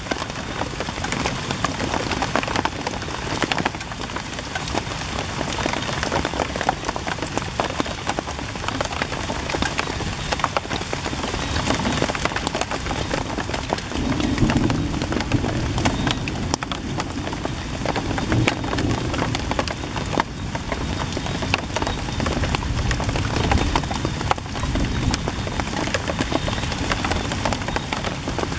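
Steady rain falling: a dense, even hiss with many scattered sharp ticks of drops.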